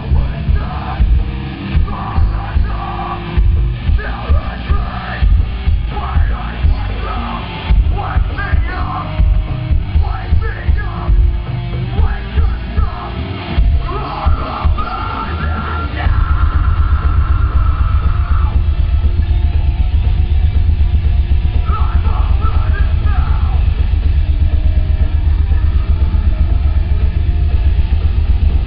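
Live heavy metal band playing loud, with shouted vocals over drums and distorted guitar in the first half. About halfway through, the drums switch to a fast, even pounding that carries on to the end.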